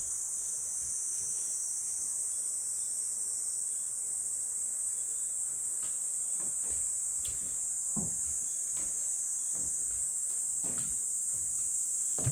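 Steady, high-pitched insect chorus buzzing without a break, with a few soft low thuds in the second half.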